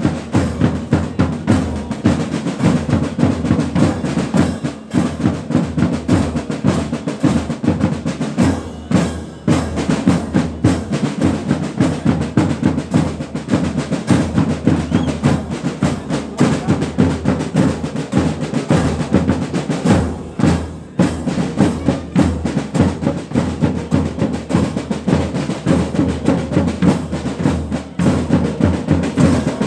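Marching band playing a march: snare drums with rolls and bass drum beating a steady rhythm, with bell lyres among the instruments.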